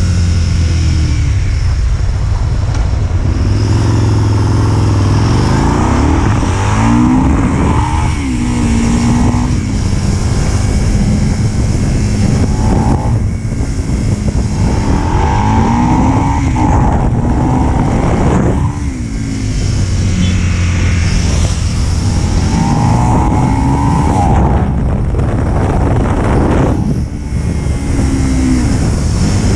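Aprilia Tuono motorcycle engine heard from the rider's seat, accelerating hard through the gears: the revs climb several times and drop back at each shift or roll-off.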